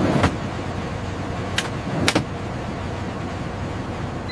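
An electronics unit being slid and latched into a metal avionics rack: a thump as it goes in, then a sharp click about one and a half seconds in and a quick double click shortly after. The clicks sit over steady background noise.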